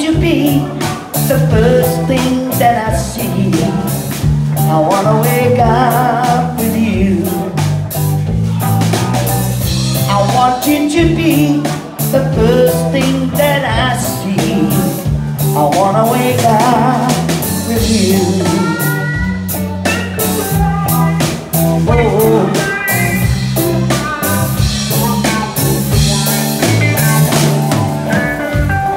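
Live rock band playing: electric guitars, electric bass and drum kit in a steady groove.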